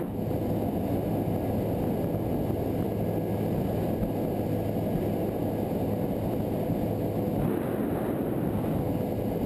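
Engine of a 22-foot center console bay boat running steadily while underway, with the rush of water and wind around the hull. A faint steady tone sits in the running sound throughout.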